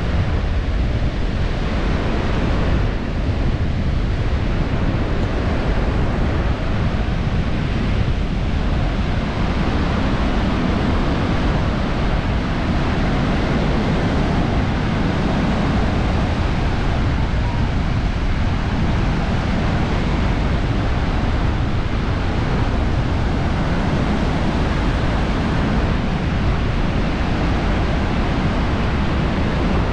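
Surf washing onto a sandy beach, mixed with wind buffeting the microphone: a steady rushing noise, heaviest in the low end.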